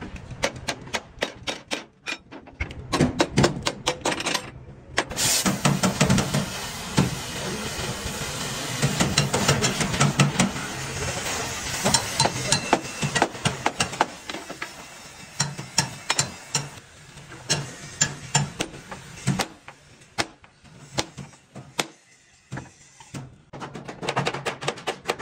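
Hammer blows on sheet metal, struck irregularly and often in quick runs, as the accident-damaged truck cab is panel-beaten back into shape. For several seconds in the middle a steady rushing noise runs under the strikes.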